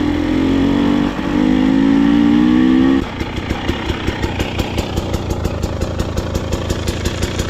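Dirt bike engine under throttle, its pitch rising as it accelerates, then dropping suddenly about three seconds in as the throttle is rolled off, running on in an uneven pulsing beat.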